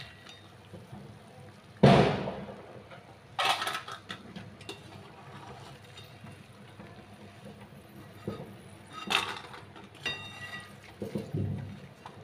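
Steel spoon clinking and scraping against a steel kadhai and a steel plate as freshly fried shankarpali are scooped out of the oil and tipped onto the plate. Several sharp clatters, the loudest about two seconds in, one leaving a brief metallic ring near the end.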